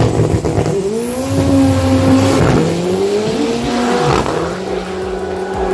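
VW Gol drag car accelerating hard down the strip: the engine's pitch climbs, drops at a gear shift about two and a half seconds in, climbs again, then falls away about four seconds in.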